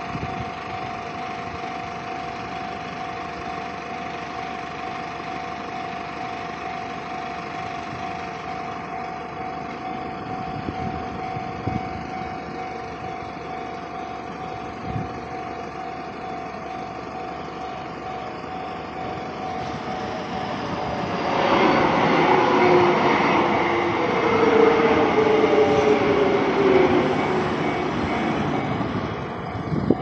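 Japanese railway level-crossing alarm ringing steadily, then about twenty seconds in a Kintetsu Minami-Osaka Line train runs through the crossing for about eight seconds, loud, with a falling whine as it goes.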